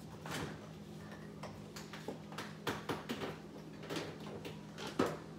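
Scattered light clicks and knocks of someone moving about a kitchen off-camera while fetching butter, over a steady low hum. The sharpest knock comes near the end.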